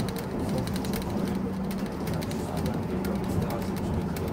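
Tram running along its track, heard from inside the car: a steady low hum under a constant rolling and rumbling noise.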